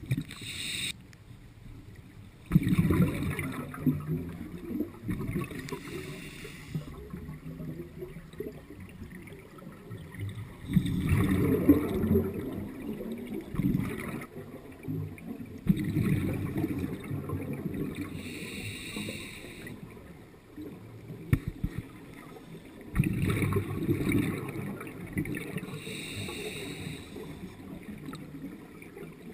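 Scuba diver breathing through a regulator underwater: a short hiss on each inhale and a gurgling rush of exhaled bubbles, repeating every several seconds.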